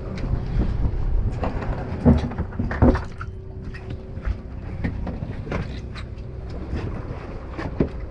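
Charter fishing boat's engine running with a low rumble and steady hum, with a few short knocks and clatter on the deck.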